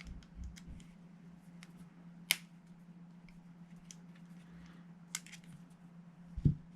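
Light clicks of a small tool working on the grub screw that retains the rear pin of a GHK G5 gas-blowback airsoft rifle, with a sharper click about two seconds in and another about five seconds in. A short low thump near the end, over a faint steady hum.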